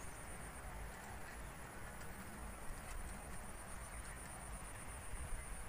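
Outdoor ambience of a steady, high-pitched insect trill, with a faint low rumble beneath it.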